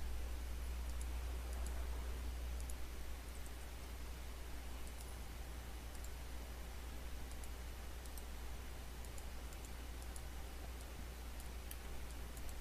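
Light, scattered computer mouse clicks over a steady low hum.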